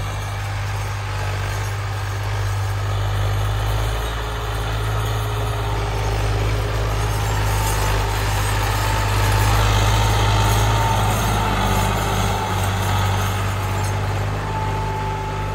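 Massey Ferguson 260 tractor's three-cylinder diesel engine running steadily under load while pulling a cultivator, getting louder around ten seconds in as it passes close, then easing off.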